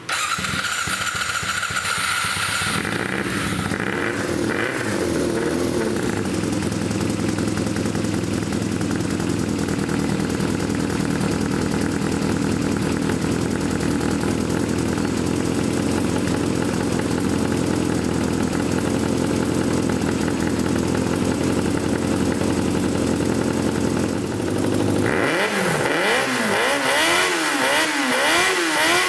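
Yamaha XJR400 inline-four motorcycle engine running steadily at idle, then revved repeatedly near the end, the pitch rising and falling with each blip of the throttle.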